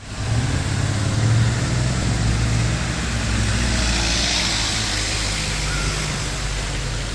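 Street traffic: car engines running with the hiss of tyres on the road, swelling briefly about halfway through as a vehicle passes.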